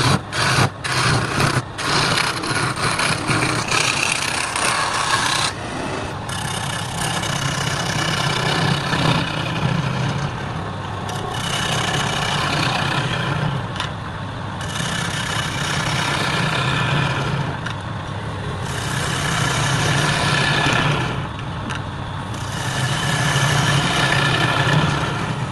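Wood lathe running with a steady low hum while a tool works the spinning wood in repeated passes, each a rising and falling hiss lasting a few seconds, after a few sharp clicks near the start.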